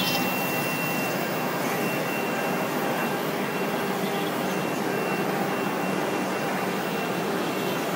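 Ruofen FLD4040 CNC router running while engraving metal: a steady high whine from the spindle over a constant hiss of machine noise.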